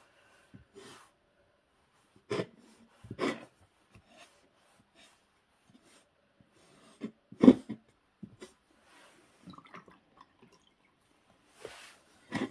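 Damp sponge wiping underglaze off a bisque-fired ceramic piece, heard as a few short rubbing and handling noises with quiet gaps between. The loudest is a brief bump about seven and a half seconds in.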